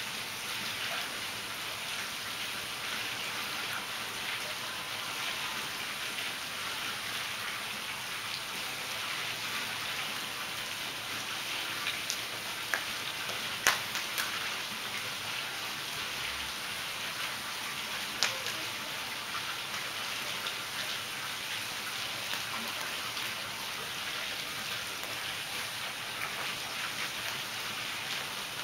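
Steady splashing and pattering of pool water, with a few sharp splashes or knocks about halfway through.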